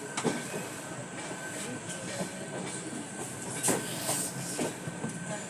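Passenger train running: a steady rumble with a faint steady whine and scattered knocks from the wheels and coaches, one louder knock a little past the middle.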